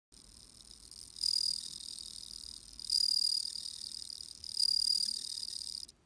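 Bell crickets (suzumushi, Meloimorpha japonica) singing: a male with forewings raised, rubbing them together in a high, ringing trill. Three louder ringing phrases come about every second and a half over a softer steady ringing, and the sound stops suddenly near the end.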